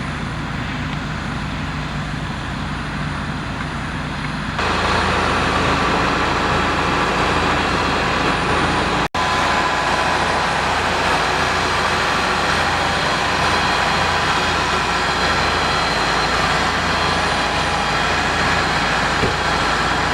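Massey Ferguson tractor engine running steadily, with its hum and hiss. It gets louder about four and a half seconds in, and there is a very brief dropout near nine seconds.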